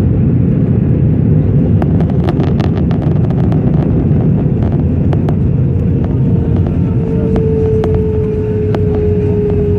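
Airliner cabin noise: a loud, steady low rumble of engines and airframe, with scattered clicks and rattles. About two-thirds of the way in, a single whining tone comes in and slowly falls in pitch.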